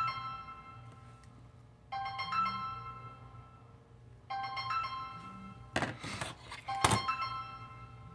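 A telephone ringing with a melodic ringtone, a short phrase of tones repeating about every two and a half seconds. Two sharp knocks come about six and seven seconds in.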